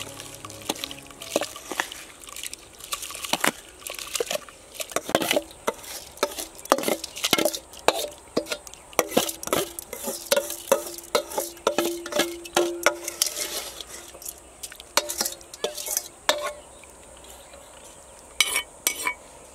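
Metal spoon scraping and tapping against an aluminium bowl and pot as rice is tipped into water and stirred: a quick, irregular run of clinks and scrapes, with a brief ringing tone from the metal partway through.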